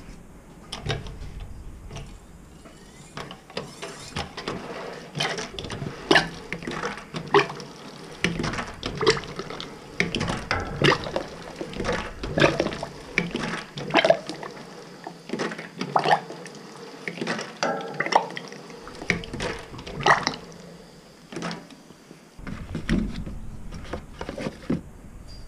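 Hand pump on an oil drum being worked, with a series of knocks roughly once a second as its strokes push oil out of the spout and it pours into a plastic measuring jug.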